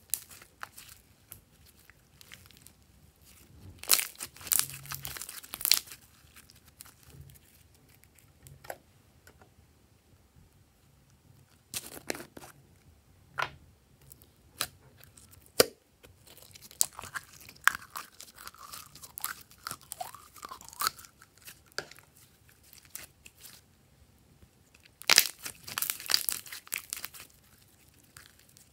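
Glossy slime squeezed out of a mesh-netted balloon and kneaded by hand: sticky crackling and popping clicks that come in bursts, with quieter stretches between.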